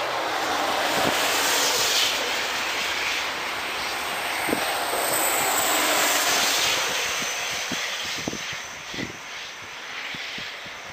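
Passing train: a broad rushing noise that swells, holds for several seconds and then fades, with a high whistle falling in pitch midway and a few knocks of wheels over rail joints.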